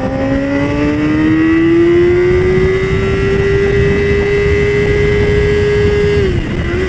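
2007 Yamaha YZF-R6's inline-four engine pulling hard as the sportbike accelerates, its pitch rising over the first couple of seconds and then holding high, with a brief dip near the end. Steady wind rushes over the helmet-mounted microphone.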